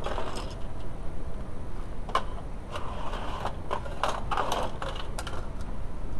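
Tool work on a workbench: a string of sharp clicks and short mechanical, ratcheting bursts, growing busier from about two seconds in.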